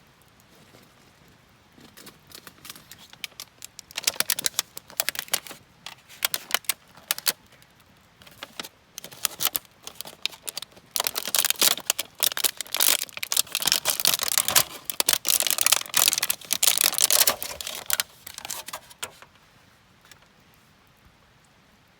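Rapid, irregular clicking and clattering of small hard objects in bursts, loudest through the middle and dying away near the end.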